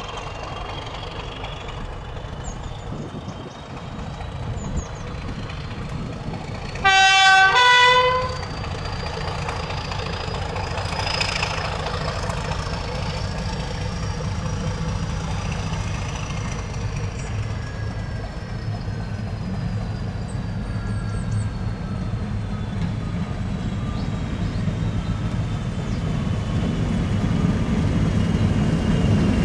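British Rail Class 31 diesel locomotive approaching, the low running of its English Electric V12 engine growing louder as it nears. About seven seconds in it sounds its two-tone horn, a lower note then a higher one, for about a second and a half.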